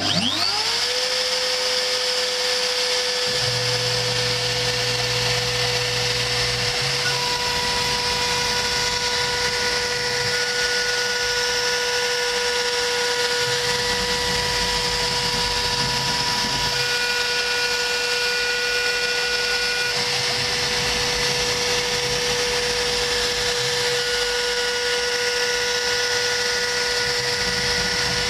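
CNC router spindle spinning up with a rising whine in the first second, then running at a steady high whine as it cuts through a 3 mm cardboard sheet. Fainter higher tones come and go as the head travels along the cut.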